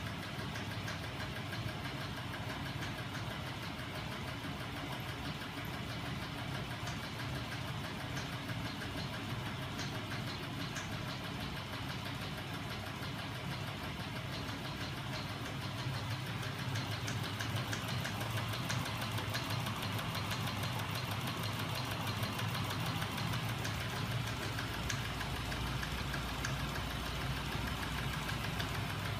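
Homemade magnet-and-crankshaft machine running, driven by a small 12 V DC electric motor: a steady mechanical whir with a fast, even ticking. It grows louder about halfway through, and a deeper hum joins near the end.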